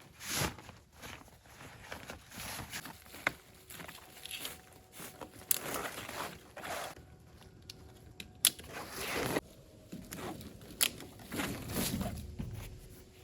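A folding camp cot being unpacked and put together: nylon fabric and bag rustling, with several sharp clicks and knocks as the frame pieces go together.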